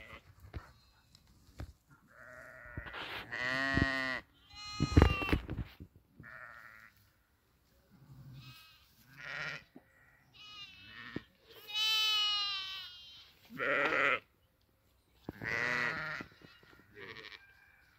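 Sheep in a flock bleating: a string of separate calls, some long and wavering, at different pitches and loudness, with short pauses between them.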